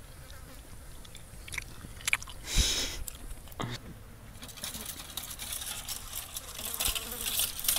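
Rustling and crackling handling noises: scattered clicks, a short burst of rustling about two and a half seconds in, then dense crinkling and crackling that grows louder over the last three seconds.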